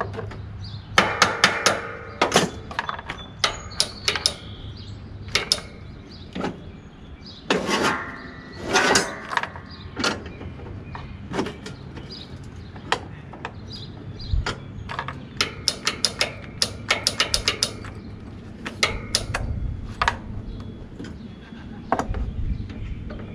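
Hand tools clinking and clanking against the metal of a lawn tractor while its starter solenoid wiring is worked on: scattered sharp clicks and knocks, some in quick runs with a brief metallic ring, over a low steady hum.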